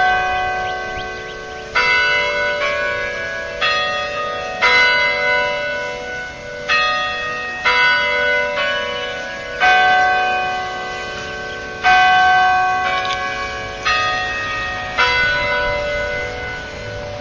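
Tower bells of the Ball State bell tower chiming a tune before the noon hour strikes, about one bell struck a second, each note of a different pitch ringing on and fading into the next.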